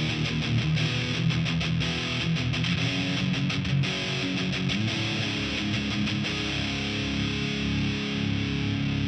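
Electric guitar through a Marshall amp and cabinet playing a simple riff, close-miked with a Shure SM57 at the speaker grille. Quick picked notes come first, then longer held notes from about four seconds in.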